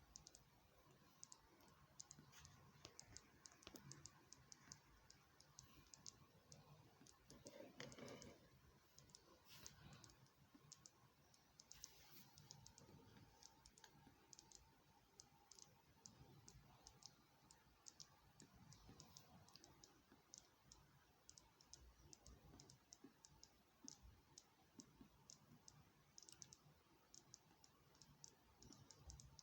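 Faint, rapid, irregular clicking, several small ticks a second, over near silence.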